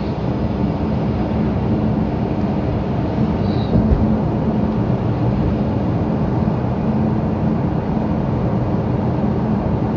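Steady low rumble of a car's tyres and engine heard inside the cabin while driving on wet pavement, with a single low thump about four seconds in.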